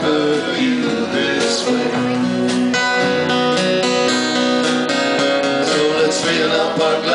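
Live band playing an instrumental passage between vocal lines: strummed acoustic guitars over a drum kit, with long held notes.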